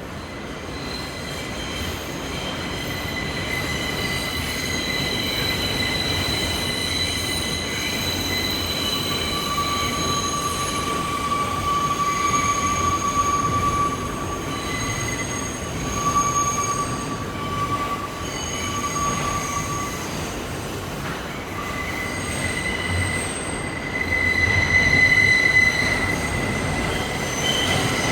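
Kawasaki R160B subway car with Siemens propulsion running through the tunnel, heard from inside the car: a steady rumble with high, thin wheel squeals that come and go. The train gets louder over the first few seconds.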